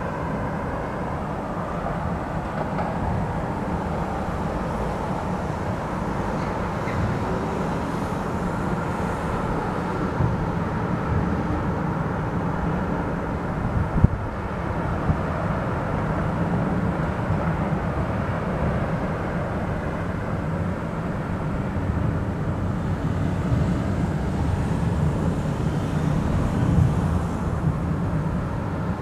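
Aerial fireworks shells bursting in a dense barrage, their booms blending into a steady rumble, with one sharp bang about halfway through.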